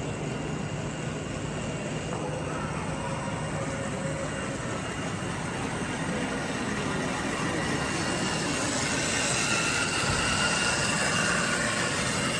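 Small electric motors of radio-controlled model construction vehicles running with a wavering whine over a steady hiss, growing louder about eight seconds in.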